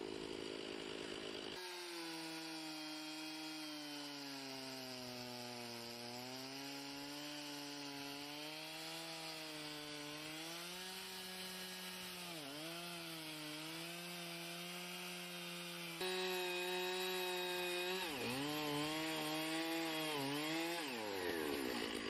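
Two-stroke chainsaw running at high revs in a chainsaw mill, ripping a log lengthwise. Its pitch sags and recovers as the chain loads up in the cut, and it dips sharply twice in the second half. The sound changes abruptly twice and is a little louder after the second change.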